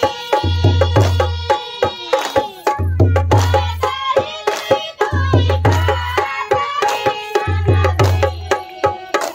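Tharu folk dance music: a two-headed barrel drum played by hand, its deep bass strokes coming in short groups about every two seconds with sharper slaps between, under group singing.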